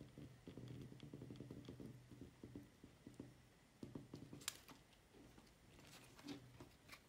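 Faint rubbing and handling sounds of a plastic card being pressed and slid over a hydrogel screen protector on a smartwatch screen, squeezing out air bubbles, with a short sharp click about four and a half seconds in.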